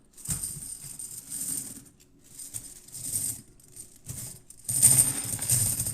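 Many silver Franklin half dollars jingling and clinking together as a bag of them is handled. There are two spells of it: one just after the start that lasts about a second and a half, and a louder one near the end.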